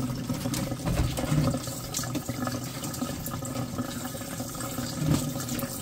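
Tap water running steadily into a stainless steel sink, with a few faint ticks over it.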